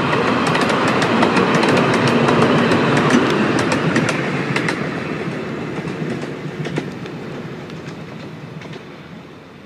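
Miniature railway carriages rolling past, their wheels clicking over the rail joints, then receding so that the rumble and clicks fade steadily away.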